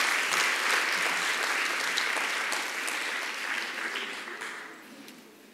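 Audience applause, a dense patter of clapping that tapers off and dies away near the end.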